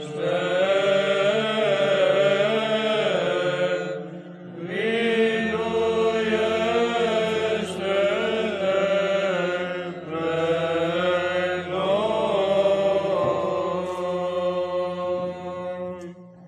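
Orthodox Byzantine-style chant sung by male monastic voices in long melodic phrases, with a low held drone note (ison) entering about five seconds in. The phrases pause briefly twice for breath, and the chant ends and fades out right at the close.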